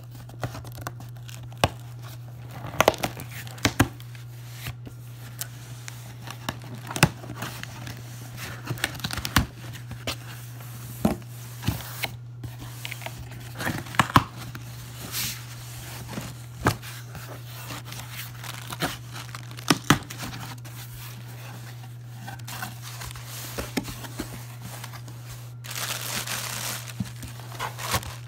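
A cardboard shipping box being opened by hand: packing tape ripping and cardboard crackling in sharp, irregular bursts, then plastic air-pillow packing crinkling near the end. A steady low hum runs underneath.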